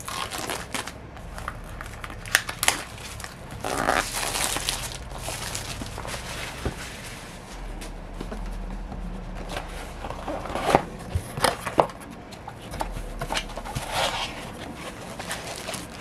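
Plastic shrink wrap being torn, peeled and crinkled off a cardboard product box, then the box being opened and its contents handled. Irregular rustling and crinkling runs throughout, with scattered sharp taps and clicks, the loudest of them around the middle.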